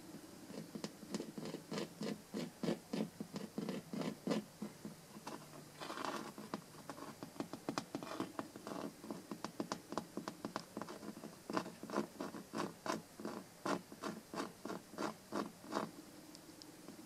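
Short scratching strokes on a carpet, repeated in runs. They are strongest in the second half, at about two or three a second.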